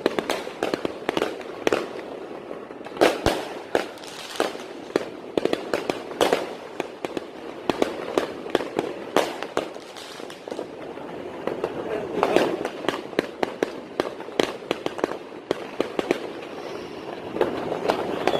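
Many fireworks going off at once: dense, irregular bangs and crackling pops, several every second, with a few sharper, louder cracks standing out.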